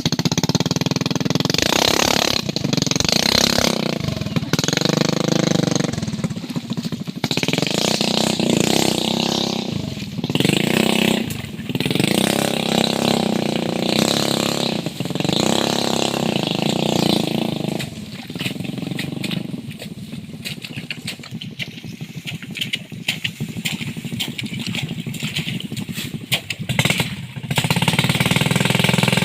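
Motorcycle engine revving up and falling back again and again, with a quieter stretch of lower running late on and louder revving near the end.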